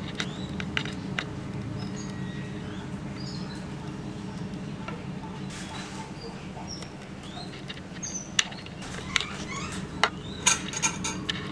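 A steady low hum runs under light clicks and taps from a steel puttu tube being handled as the steamed puttu is pushed out onto a banana leaf. The taps come a little more often and sharper in the last few seconds.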